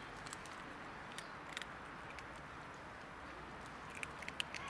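Cats crunching dry kibble: scattered sharp little crunches over a steady outdoor hiss, coming more often near the end.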